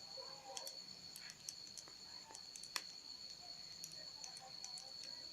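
Faint, irregular clicks and soft sticky taps of a spoon stirring thick glue slime in a plastic container, over a steady faint high-pitched whine.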